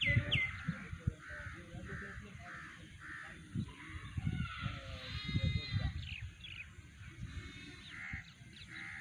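Birds calling outdoors: quick falling chirps at the start, then a steady series of short harsh calls about twice a second, with a louder burst of calls midway. A low rumble runs underneath.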